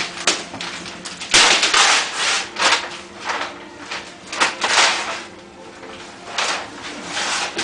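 Wrapping paper being torn and ripped off a large cardboard gift box, in a series of irregular rasping tears with rubbing between them.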